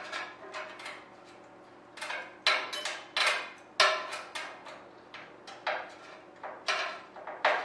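Irregular sharp metallic clicks and clinks, about eight in all and spaced unevenly, as clamps are worked onto a metal wing rib at the spar to hold it square.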